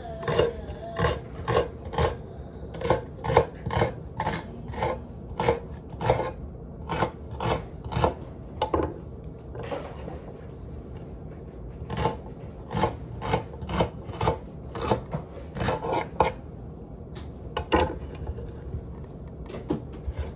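Kitchen knife chopping celery on a wooden cutting board: a run of sharp knocks, about two a second, pausing briefly twice.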